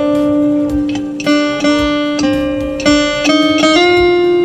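Acoustic guitar playing a slow single-note melody through a DI-box preamp with its treble boost on. About seven plucked notes each ring on before the next.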